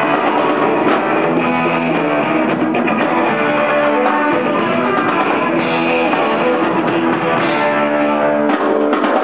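Live rock band playing, electric guitar and bass guitar to the fore, steady and loud.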